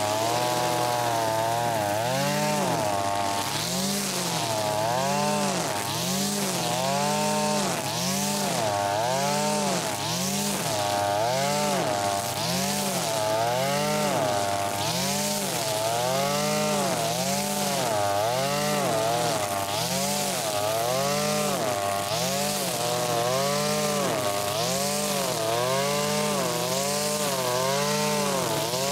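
Zenoah BCZ261 brush cutter's 25.4 cc two-stroke engine running at work with a saw-type nylon cutter head. Its pitch dips and recovers about once every second and a half as each swing of the head bites into the grass and clears it.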